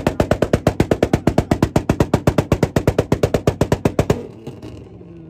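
Car engine held on a two-step launch rev limiter: a rapid, even stutter of pops, about ten a second, that stops about four seconds in.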